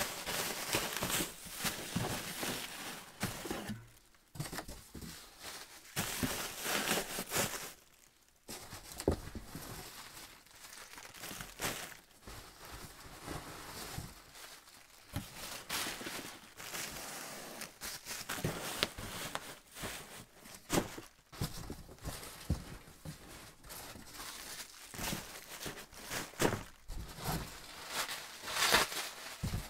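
Bubble wrap crinkling and rustling as it is handled, with irregular crackles and small knocks, and a couple of brief pauses.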